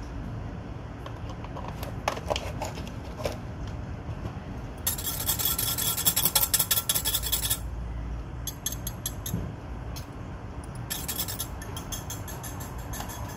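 Bursts of rapid rasping, rubbing handling noise from a small item worked in the hand. The loudest burst comes about five seconds in and lasts two to three seconds, with shorter bursts later.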